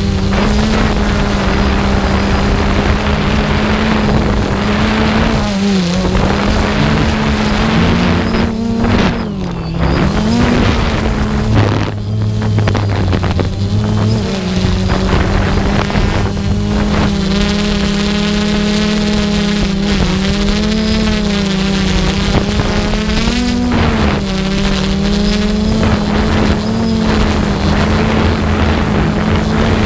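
Steady hum of the motor and propeller of the small aircraft carrying the camera, over a constant rushing noise. Its pitch dips briefly and recovers several times.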